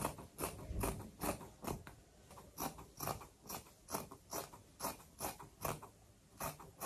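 Fabric scissors cutting through unbleached raw cotton in a steady run of snips, about two to three a second.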